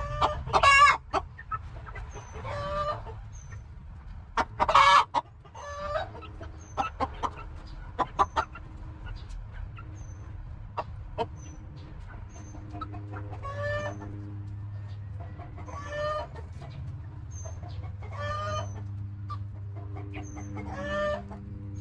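Backyard chickens clucking and calling while they feed, with two loud calls near the start and about five seconds in and quieter calls scattered through. A run of sharp clicks in the middle is beaks pecking grain off the mat.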